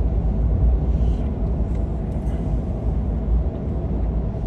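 A car driving along a highway, heard from inside the cabin: a steady low rumble of road and engine noise.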